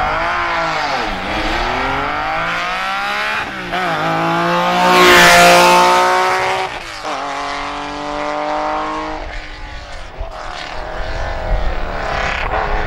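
Rally car accelerating hard through the gears, its engine note climbing and then dropping at each upshift. It is loudest as it passes about five seconds in, then fades as it drives away behind the trees.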